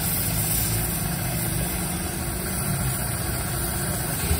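An engine running steadily at idle: an even, low rumble.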